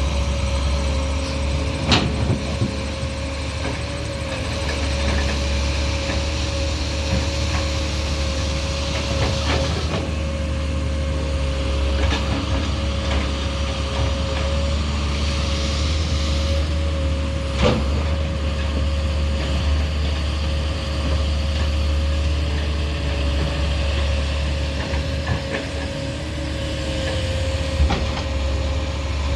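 Doosan 300 hydraulic excavator's diesel engine running steadily with a constant whine, and a few sharp knocks, the loudest about two seconds in and just past the middle.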